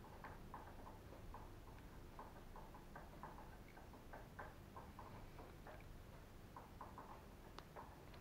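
Faint, irregular small clicks and ticks of plastic ball-joint parts for a Traxxas Revo 3.3's suspension being turned and fitted by hand, several a second.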